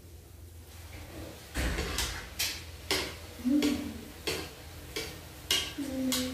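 Metal slotted spoon knocking and clinking against a kadhai while puris are turned in hot oil: a string of sharp clinks about every half second, starting about one and a half seconds in, with two short low hums among them.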